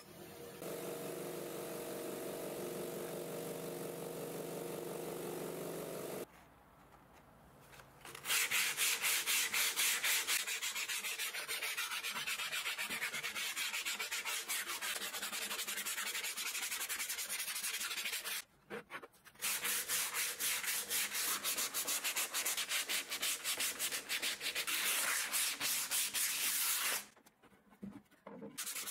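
A vibratory tumbler hums steadily for the first six seconds. From about eight seconds in, sandpaper is rubbed by hand over the old finish of an antique wooden stool's round seat frame in quick repeated strokes, pausing twice briefly.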